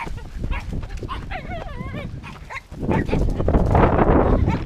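A dog behind a fence barking and whining, with a wavering whine about a second in. From about three seconds in a loud rushing noise covers it.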